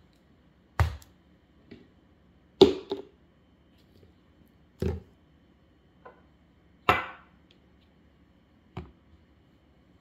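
Plastic condiment bottles and a glass jar set down one at a time on a granite countertop: six sharp knocks about two seconds apart, the loudest a double knock a little under three seconds in.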